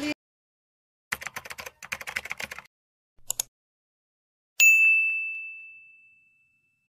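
Subscribe-button end-card sound effects: a quick run of typing-like clicks, a click or two about three seconds in, then a single bell ding that rings out and fades over about a second and a half.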